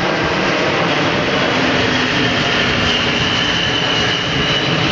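Antonov An-124's four Progress D-18T turbofan engines running steadily as the big freighter flies past: a loud, even jet noise, with a faint high whine that drops slightly in pitch after the middle.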